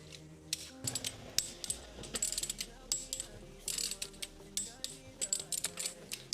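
Hand ratchet wrench clicking in short, irregular bursts, with metal tool clinks, over quiet background music.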